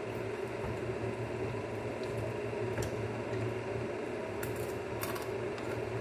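Steady hum of a running appliance with a low drone, and a few short sharp clicks about three, four and a half and five seconds in, from eating fried bird by hand.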